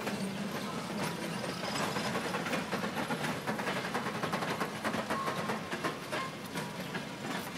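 Passenger train coaches rolling past, their wheels clicking and clacking irregularly over the rail joints, over a steady rumble and hiss of the moving train.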